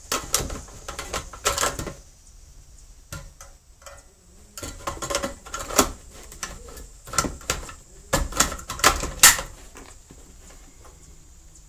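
Clicks and metallic clatter of a Ruger Mini-30 rifle being handled, coming in several short clusters, with the sharpest knocks near the end.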